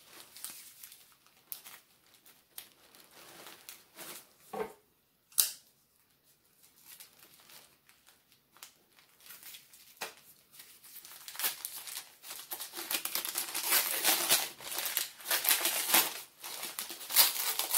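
Kraft-paper wrapping being cut and torn open around a boxed deck of playing cards: scattered rustles and a sharp click in the first half, then busier, louder crinkling and tearing of the paper from about two-thirds of the way in.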